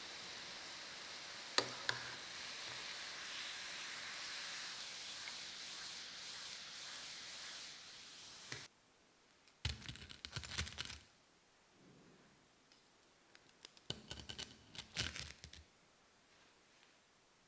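Hot oil sizzling steadily in a small pot of frying donuts, with a sharp click of metal tongs about a second and a half in. The sizzle cuts off suddenly after about eight seconds. Two short bursts of crunchy crackling follow, around ten and fifteen seconds in, as metal tongs handle the crisp breadcrumb-coated fried donuts.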